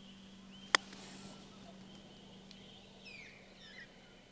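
A single crisp click of a putter striking a golf ball, about a second in. A few faint bird chirps follow near the end, over a faint steady hum.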